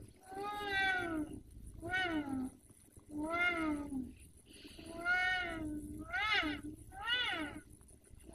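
A cat meowing over and over: about six drawn-out meows in a row, each rising then falling in pitch, with short pauses between them.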